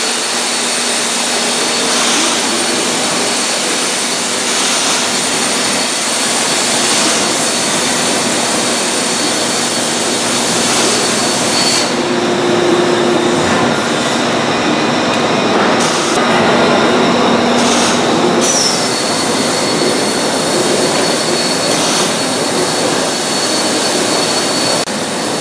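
Loud, steady rushing noise of running workshop machinery or ventilation, with a thin high whine over it. The hiss thins out for a few seconds about halfway through, then returns.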